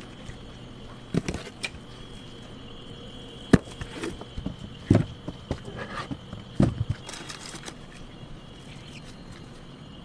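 Irregular knocks and taps of sausages and a knife against a white plastic cutting board and plastic tubs as the sausages are cut and handled. The sharpest knock comes about three and a half seconds in, and a faint steady high whine runs underneath.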